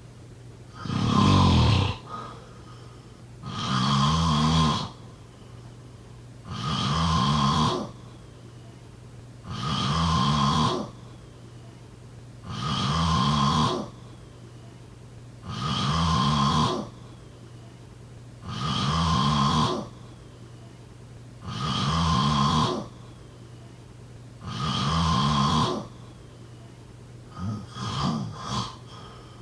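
A person snoring in a slow, regular rhythm: about nine snores, one roughly every three seconds, each lasting over a second. Near the end the rhythm breaks into a few short, choppy snorts.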